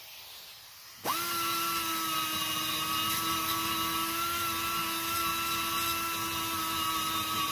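Hand-held die grinder starting up about a second in and then running at a steady high speed as it cuts into the aluminium exhaust port of a Mazda rotary engine's rotor housing, blending the port's edge into the Inconel exhaust sleeve.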